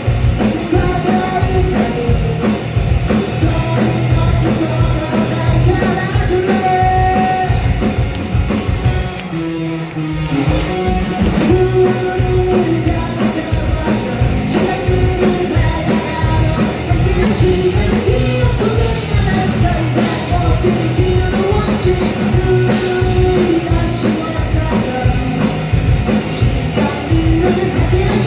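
Rock band playing live at full volume: a fast drumbeat and band accompaniment under a sung melody, with a brief break about ten seconds in before the full band comes back.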